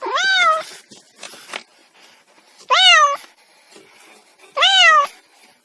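Domestic cat meowing: three short meows about two seconds apart, each rising and then dropping in pitch.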